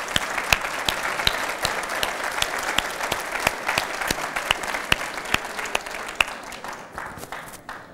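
Audience applauding: many hands clapping at once, with sharp individual claps standing out, dying away near the end.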